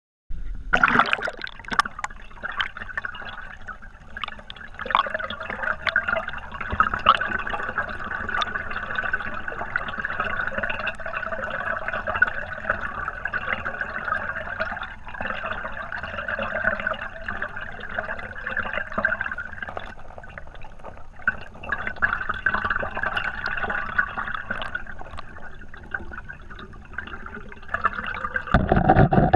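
Stream current heard underwater through a GoPro Hero 3's waterproof housing: a steady rush of moving water with many small scattered clicks. A louder, deeper rush comes in near the end.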